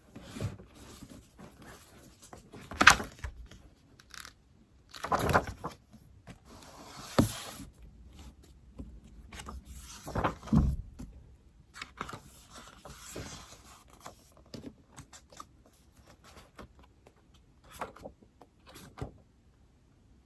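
Irregular taps, scrapes and rustles of desk work with an iPad, with a few louder knocks and handling thuds spread through it.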